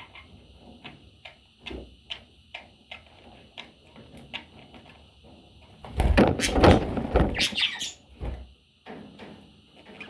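Pet parrots chirping and squawking among scattered small clicks and knocks, with a louder noisy clatter lasting about two seconds, starting some six seconds in.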